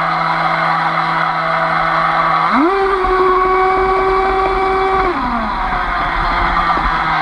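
RC boat's Aquacraft brushless electric motor whining at part throttle. Its pitch steps up sharply a little over two seconds in, holds there for about two and a half seconds, then slides back down, over a rushing of water against the hull.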